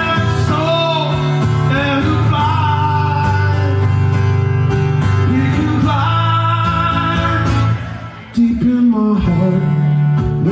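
A man singing with long held notes, accompanying himself on a strummed acoustic guitar, amplified through a PA; the music dips briefly about three-quarters of the way through before he carries on.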